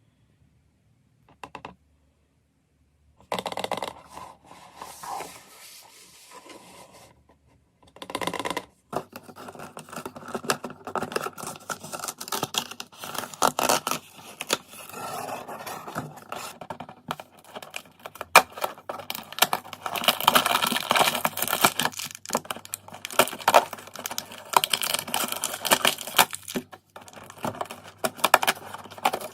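Surprise-toy packaging being opened by hand: plastic and paper tearing, crinkling and scraping, with many small clicks and taps. A couple of faint clicks at first, then the handling grows busier and runs almost without a break from about nine seconds in.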